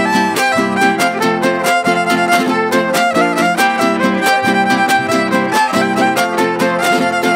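Son huasteco played by a trio huasteco: the violin plays a lively melody over the quick, even strumming of the jarana and huapanguera. This is an instrumental break between sung verses.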